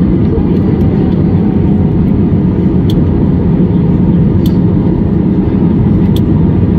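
Steady low rumble of cabin noise inside an Airbus A320 in flight on approach, with three faint sharp clicks about a second and a half apart.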